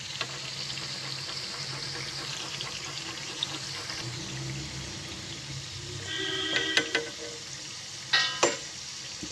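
Gujiya pastries deep-frying in ghee in a kadhai: a steady sizzle as a slotted spoon turns them. About six seconds in a short pitched sound rises over the sizzle, and a few sharp knocks about eight seconds in are the loudest thing.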